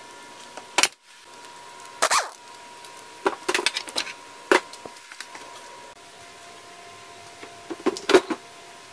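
Scattered metal knocks and clunks from a 1981 Evinrude 25 HP outboard's powerhead being worked loose and lifted off its midsection, a few single knocks and a quick cluster of them near the end.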